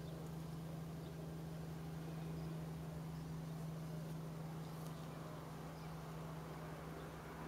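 Steady low mechanical hum with a faint low rumble of outdoor background noise, no bird calls standing out.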